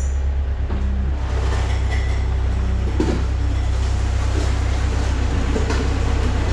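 2004 Takeuchi TL130 skid steer's diesel engine running steadily with a deep, even rumble.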